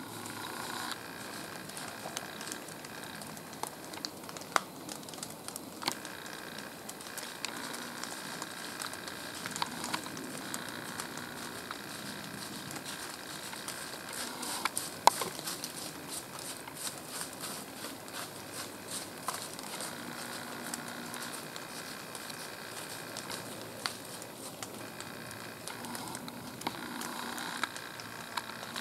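Light rain pattering on dry fallen leaves and gear: an irregular scatter of soft ticks and crackles, with a few sharper clicks, the loudest about fifteen seconds in.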